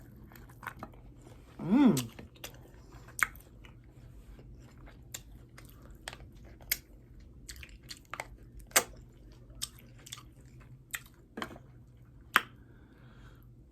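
Close-up chewing and biting of saucy hot chicken wings, with irregular wet smacking clicks of the mouth. A short vocal sound comes about two seconds in.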